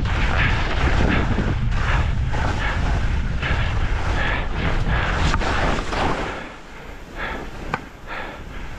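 Skis scraping and carving across snow in a series of quick turns, about two a second, over a heavy wind rumble on the microphone. It eases off about two-thirds of the way through.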